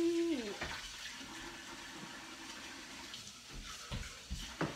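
Kitchen tap running steadily as water is drawn for the bread dough, with two short knocks near the end.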